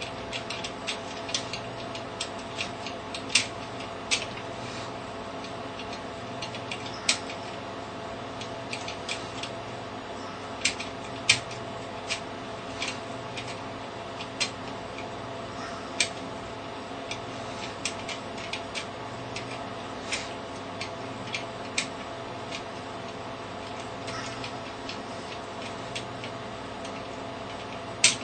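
Dangerfield mortice pick clicking against the levers inside a curtain-type mortice lock as the lock is picked: irregular light metallic clicks, a few louder ones among them, over a steady background hum.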